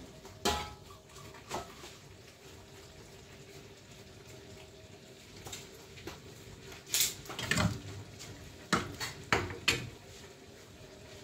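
Metal pots, pans, lids and utensils knocking together on a gas stove: scattered sharp clanks, a cluster about seven seconds in and three hard clanks near the end, over a faint steady hum.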